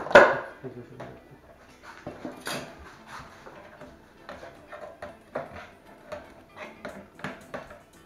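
A galvanised steel drywall profile knocks down onto a workbench, then metal snips cut into the steel channel with a run of short, sharp snips about two a second.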